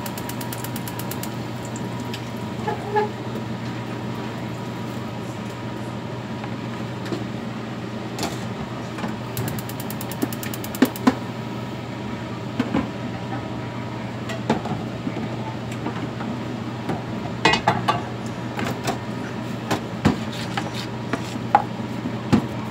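Frying-pan cooking on a gas stove: a steady low hum throughout, with scattered clicks and knocks of a metal spatula and pans against each other.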